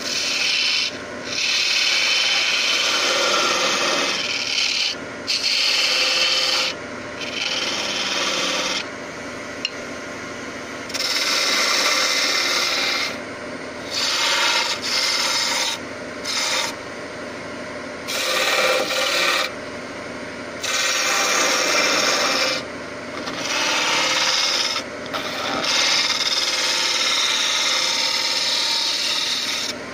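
Turning tool cutting a spinning spalted-birch blank on a wood lathe, in repeated passes of one to three seconds each, with short quieter gaps between passes.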